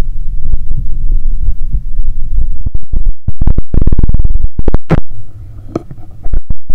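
An athlete's heartbeat heard through a stethoscope, loud and low, beating hard as the heart recovers from a 10 km run. About halfway through, a burst of rapid rasping clicks and a sharp knock cover it. It turns quieter for a moment, then comes back loud near the end.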